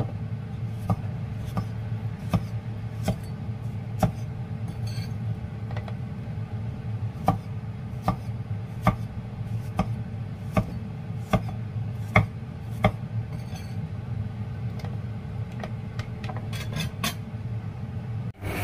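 Cleaver slicing bitter gourd on a round wooden chopping block: a sharp knock each time the blade meets the wood, about one every three-quarters of a second, over a steady low hum. The knocks thin out near the end.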